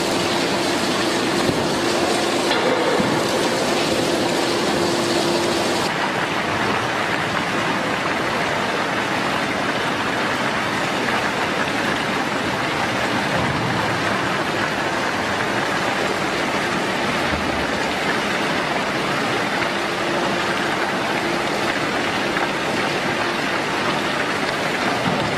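Steady rushing noise like heavy rain, with a machine's steady tone over it for the first few seconds and again near the end; the sound changes abruptly about six seconds in.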